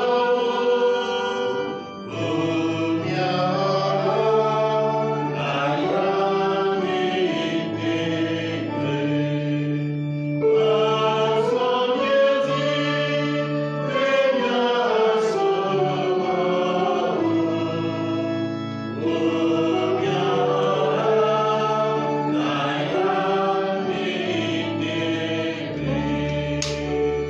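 A choir singing a slow, chant-like hymn, with sung notes held and changing every second or two over steady low held chords.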